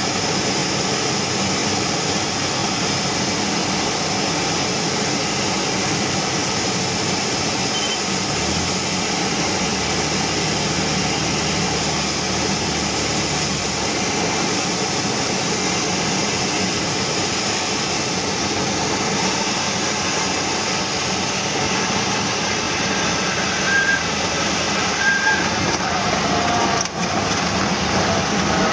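Cabin noise of a Cessna 172SP's four-cylinder Lycoming engine and airflow during the final approach and landing: a steady drone. Near the end come two short chirps about a second apart, typical of the main tyres touching down, then a sharp click.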